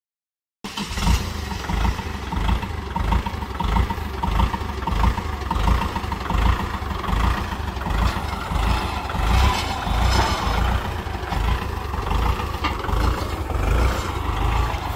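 Kubota L5018 tractor's four-cylinder diesel engine running at a fast idle, a steady pulsing rumble with diesel clatter; it cuts in abruptly about half a second in.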